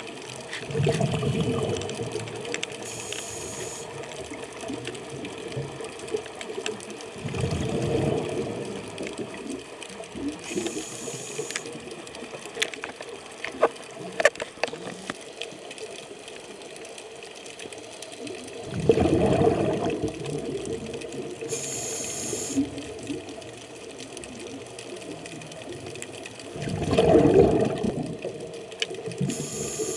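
Scuba diver breathing through a regulator underwater: a short high hiss on each inhalation, and a burst of exhaled bubbles lasting a second or two, four breaths in all. A few sharp clicks come in the middle.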